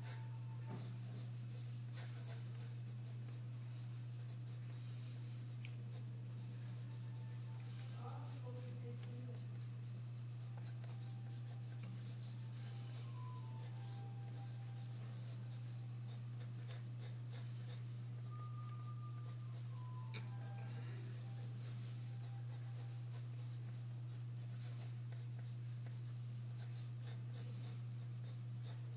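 Pencil scratching and rubbing on drawing paper in many light sketching strokes as an oval outline is drawn, over a steady low hum.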